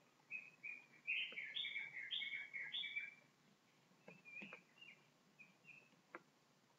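Faint bird chirping: a quick run of short, high chirps over the first three seconds, then a few softer ones. A couple of light clicks come in the second half.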